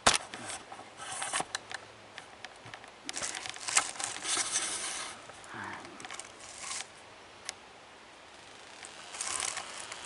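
Rustling and scraping of leafy brush with sharp clicks and knocks as a camera is handled and carried through the undergrowth. The loudest stretch is in the middle, with another brief rustle near the end.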